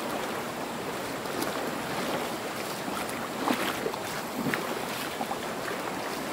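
Steady rush of a shallow river running over rocks and small rapids, with a few faint ticks.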